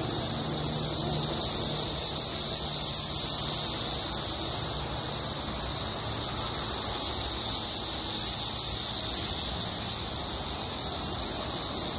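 Chorus of Brood X periodical cicadas (Magicicada): a steady, high-pitched massed drone with slight slow swells in level.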